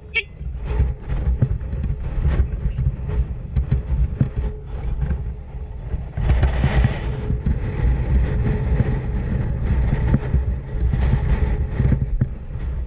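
Motorcycle engine running, with wind buffeting the microphone in a heavy, uneven low rumble and scattered knocks.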